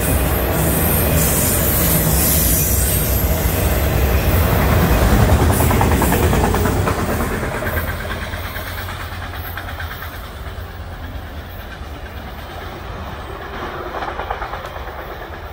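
Freight train's autorack cars rolling past close by, a steady rumble of wheels on rail that fades away after the last car goes by about seven seconds in.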